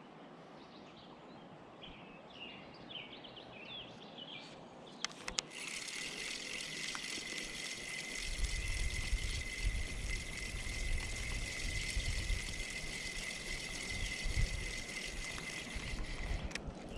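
Spinning reel being cranked: a steady whir with a thin high whine starts after a couple of clicks about five seconds in and stops just before the end. Faint bird chirps come before it.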